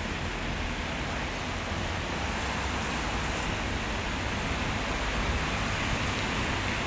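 Steady wind blowing across a handheld phone's microphone, with an unsteady low rumble and a constant rushing hiss.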